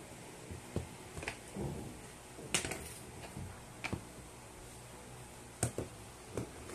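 Light clicks and knocks of a disassembled plastic Bluetooth speaker's housing parts and a pry tool being handled and set down on a wooden tabletop, about six in all, the loudest about two and a half seconds in.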